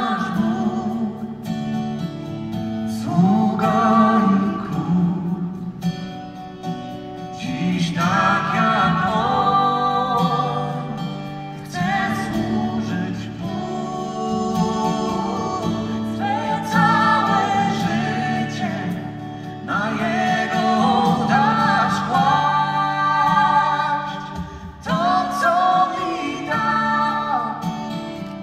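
Live concert music: a singer with band accompaniment, sung in phrases over sustained low instrumental backing, recorded from the audience seats of a large arena.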